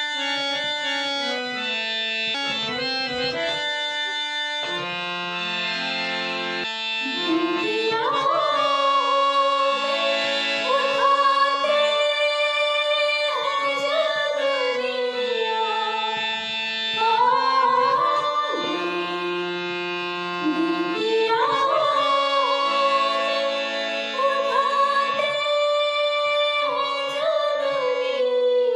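A woman singing a ghazal to her own harmonium accompaniment. The harmonium plays alone at first, and about seven seconds in her voice enters in long phrases that glide up and down over the held harmonium chords.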